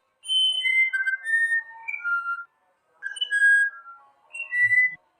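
Musician wren singing: clear, pure whistled notes that jump from pitch to pitch, in three short phrases with brief pauses between them.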